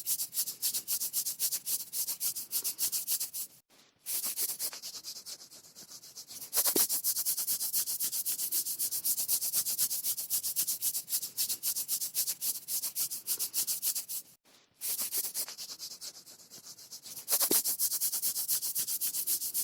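Skin being scratched in fast, rapid strokes, an itchy scratching sound. It breaks off briefly twice, about four seconds in and again about fourteen seconds in, and is softer for a couple of seconds after each break.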